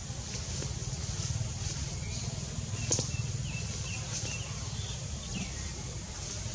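Outdoor forest ambience: a steady low rumble with a few faint, short high chirps in the middle and a single sharp click about three seconds in.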